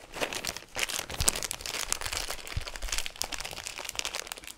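Plastic bag of corn crinkling and rustling as it is handled and folded closed, with a couple of dull bumps.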